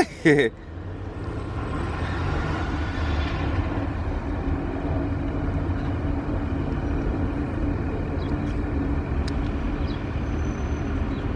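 A vehicle engine running steadily: a constant low rumble.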